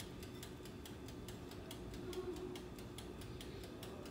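Faint, rapid, slightly uneven clicking, several clicks a second.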